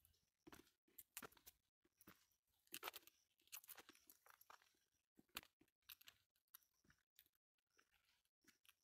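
Faint, irregular crunching and crackling clicks, several a second.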